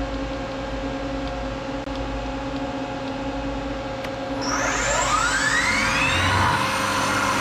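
Milling machine running with a steady hum. About four and a half seconds in, a motor spins up with a rising whine that levels off, and the sound grows louder.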